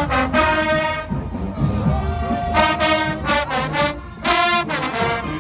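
School marching band's brass section playing, loud held brass phrases that swell and break off every second or so.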